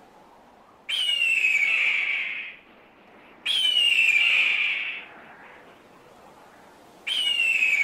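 Hawk screaming three times: long, raspy, slightly falling screams of about a second and a half each, the third beginning near the end.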